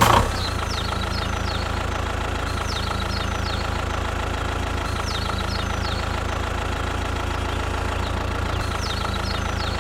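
An engine running at a steady idle: an even, unchanging hum with many overtones. Short high falling chirps recur over it.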